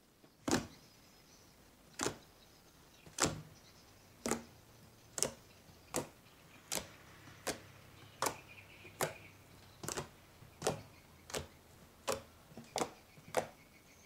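Fingers poking into thick white slime studded with foam beads, each poke giving a short, sharp pop as air is pressed out of the slime. About sixteen pops, coming faster toward the end.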